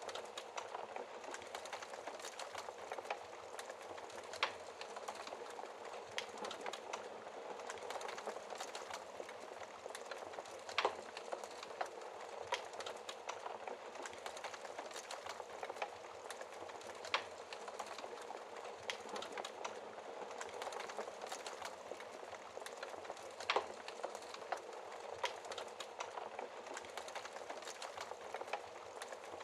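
Wood fire burning in a fireplace: a steady soft hiss with constant small crackles and a few louder pops scattered through.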